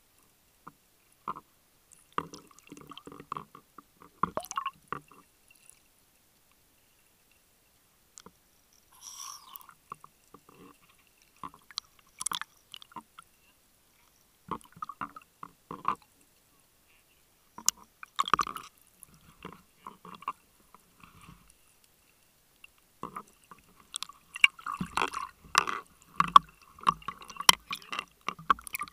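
Underwater sound through a dive camera's housing: irregular muffled clicks, knocks and gurgles in scattered short bursts, busiest near the end.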